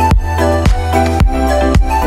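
Background music with a steady beat: a drum hit about every half second over a sustained bass and a repeating melody.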